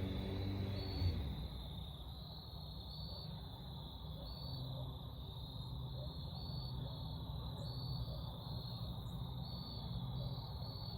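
Crickets trilling, a steady high-pitched chorus pulsing about once a second, over a low outdoor rumble, with a single thump about a second in.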